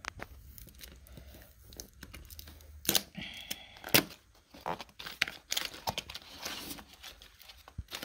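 Hands opening a small cardboard retail box: scattered scrapes, taps and rustles of cardboard sliding and flaps moving, with a brief rasp about three seconds in and the crinkle of the plastic parts bag inside near the end.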